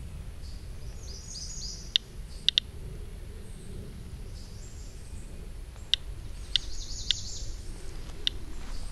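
Medcom Inspector Geiger counter clicking at irregular, random intervals, about seven clicks, counting background radiation at a rate of about 0.14 µSv/hr. Birds chirp faintly in the background.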